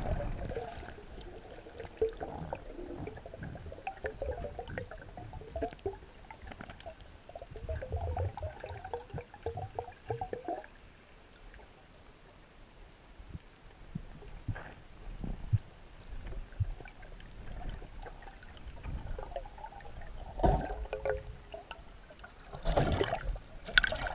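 Gurgling and bubbling water heard through a camera held underwater, with scattered knocks and louder bubbling bursts about twenty and twenty-three seconds in.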